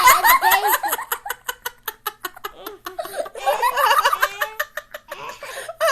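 People giggling and laughing in several bouts of quick pulsing laughs, loudest in the first second and again midway.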